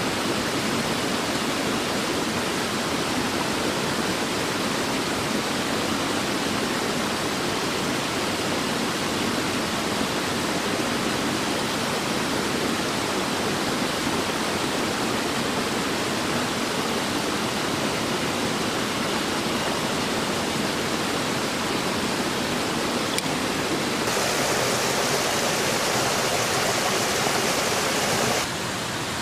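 Steady rushing of running water, like a mountain stream. Near the end the sound turns brighter and a little louder for about four seconds, then drops back.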